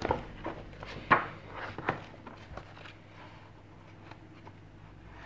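Paperback colouring books being handled and their pages flipped: a few quick paper swishes and rustles in the first two seconds, then only faint handling.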